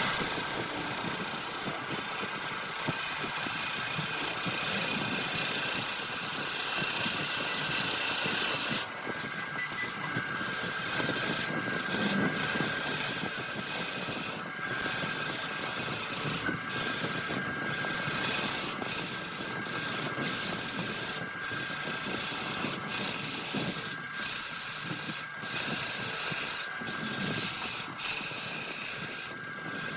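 Wood lathe running with a steady motor whine while a tool scrapes against the spinning redwood. The scraping is continuous for the first third or so. About halfway in it turns into short strokes with brief breaks between them.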